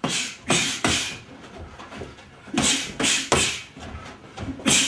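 Punches from boxing gloves landing on padded gloves held up as targets: two quick flurries of three hits, and one more near the end.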